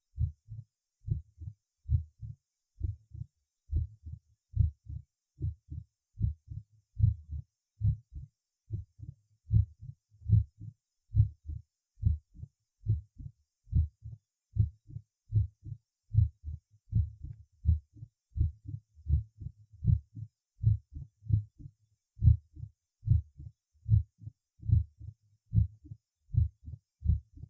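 Recorded heart sounds heard through a stethoscope at the cardiac apex, with a steady, regular rhythm of low thuds a little over one beat a second. The first heart sound is loud and snapping, the sign of mitral stenosis.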